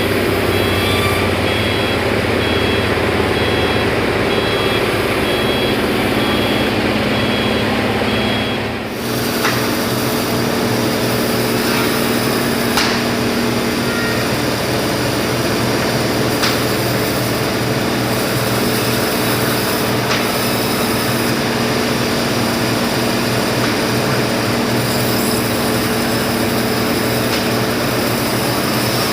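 Forklift engine running while it reverses, its reversing alarm beeping regularly, about two beeps a second. About nine seconds in the beeping stops and the sound changes to a different steady machine drone with a few light knocks.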